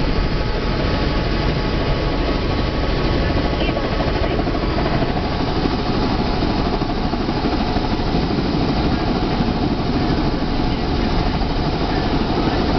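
Helicopter turbine and rotor noise heard from inside the passenger cabin: a loud, steady drone.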